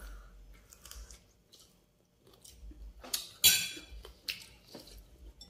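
Chewing and wet mouth noises while eating by hand, with small scattered clicks and a brief louder mouth smack about three seconds in.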